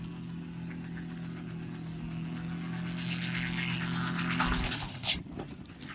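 Small light helicopter's engine and rotor running with a steady drone. Near the end the drone cuts off amid a few sharp impacts as the helicopter tips over and its rotor blades strike the ground.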